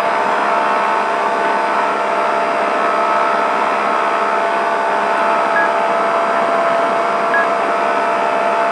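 Can-Am UTV race car running at steady speed over a dirt road, heard from inside the cab: a constant engine drone mixed with wind and gravel noise. Two short high beeps sound, about two seconds apart, in the middle.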